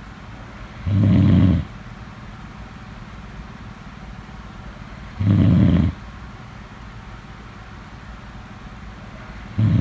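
A person snoring: three short, loud snores with a low buzzing pitch, about four seconds apart, the last starting near the end. A steady low hum lies underneath.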